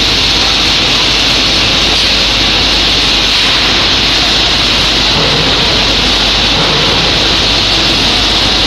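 Shot blasting machine running with a loud, steady hiss and a low hum underneath as steel purlins feed through its rubber-curtained entry.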